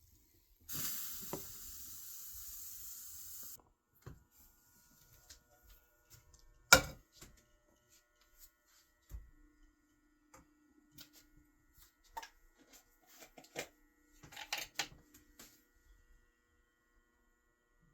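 Cooking and kitchen-handling sounds: a steady hiss lasting about three seconds near the start, then one sharp knock, followed by scattered light clicks and taps.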